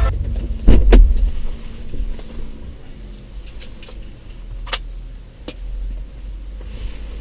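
Car door shutting with a heavy thud about a second in, followed by a few faint clicks over a low steady rumble.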